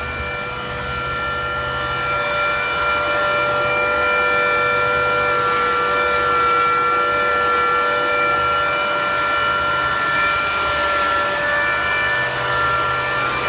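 TD wire saw machine running with a steady high whine of several held tones over a low hum.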